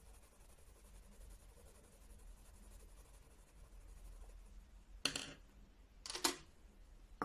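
Watercolour pencil shading lightly on watercolour paper, a faint, soft scratching. Near the end come two short, louder handling sounds as the arm moves across the pad.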